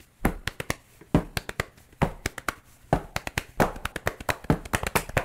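A quick, irregular run of sharp taps and clicks, with a louder tap about once a second.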